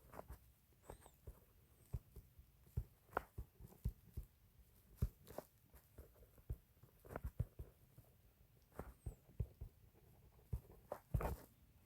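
Faint, irregular taps and clicks of a stylus writing on a tablet screen.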